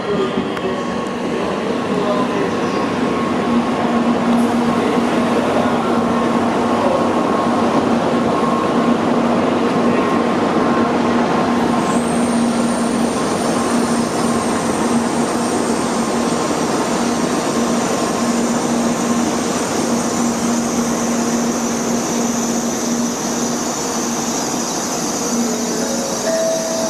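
Tokaido Shinkansen train at the platform: a loud, steady rush of running noise with a constant low hum, and a high whine that comes in about halfway through and holds.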